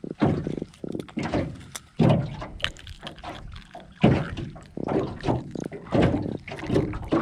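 Irregular knocks and splashes of choppy water slapping the hull of an aluminium jon boat, mixed with close handling noise as a small black drum is held and unhooked by hand.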